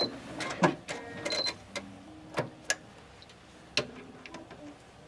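Scattered small clicks and taps, about eight irregular ones, as hands work the fabric and parts at a Janome sewing machine that has just stopped stitching. Two short high tones are among them, near the start and about a second in.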